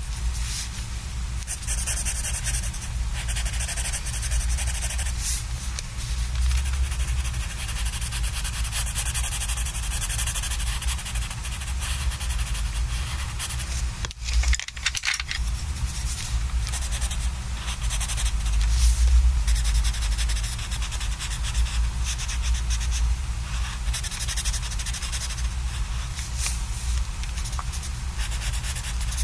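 Colored pencil scratching on sketchbook paper in quick back-and-forth shading strokes. There is a brief break about halfway through as the pencil is lifted.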